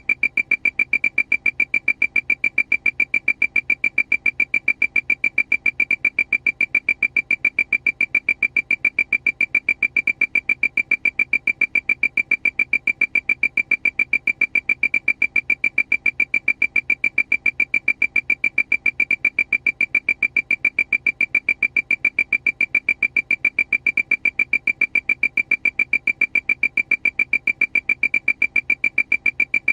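Aircraft alarm: a high-pitched electronic beep repeating rapidly and evenly, about five times a second, without change.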